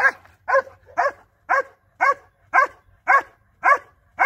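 Dog barking at a helper hidden in a blind, a protection-training bark-and-hold: nine sharp barks in an even rhythm, about two a second.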